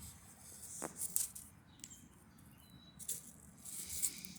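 Faint outdoor ambience with scattered short, high bird chirps and ticks, and one falling note about a second in.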